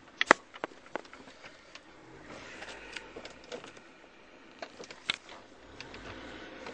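Several sharp clicks and knocks inside a car, the loudest about a third of a second in and another pair about five seconds in, over faint background hiss.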